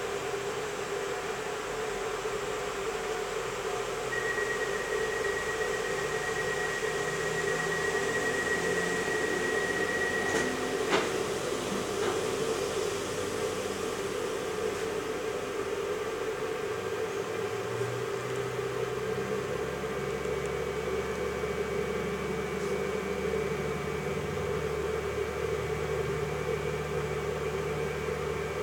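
Steady drone inside the passenger saloon of a Pesa ATR220 diesel multiple unit. A high steady beep is held for about six seconds, followed by a sharp click about eleven seconds in. From about eighteen seconds in, deeper engine tones join as the diesel units work harder.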